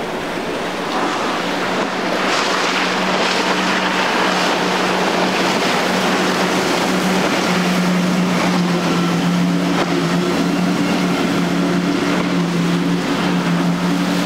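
Outboard engines of a fast center-console boat running at speed: a steady engine drone over the rush of hull spray and wake, louder from about two seconds in. The drone grows stronger about halfway through, where the boat has quad Mercury 450 hp outboards.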